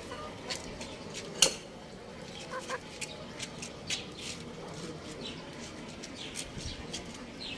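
Young rooster chirping: scattered short high calls, several falling in pitch, more of them near the end, with one sharp click about a second and a half in.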